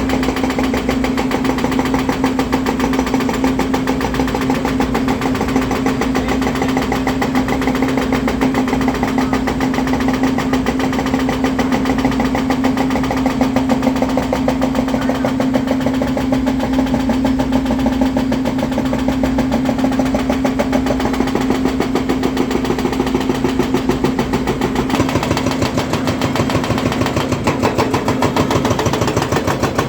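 Volvo EC300DL excavator's diesel engine running steadily, a constant hum over a fast, even pulsing.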